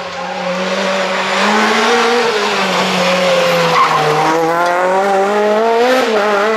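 Renault Clio rally car's engine at full race pace as it comes up and passes close by. The note drops slightly, then climbs steadily as the car accelerates away after passing.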